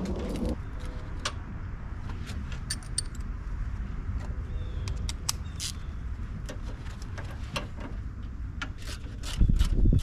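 Scattered light metallic clicks and clinks of tools and parts being handled, over a steady low rumble, with louder low knocks near the end.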